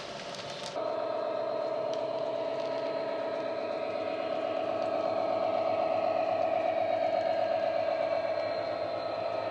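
Synthesised Class 66 diesel engine sound from an ESU LokSound decoder, played through the model locomotive's small speaker: a steady droning note with several overtones that grows louder as the model approaches and eases slightly near the end. For the first moment, before it, small wagon wheels click and rattle over the model track.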